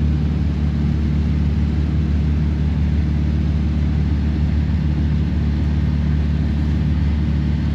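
Can-Am side-by-side utility vehicle's engine running steadily, a low, even drone.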